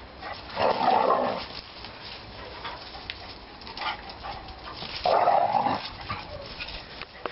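Dogs at rough play: two loud, rough dog vocal outbursts of about a second each, one just after the start and one about five seconds in.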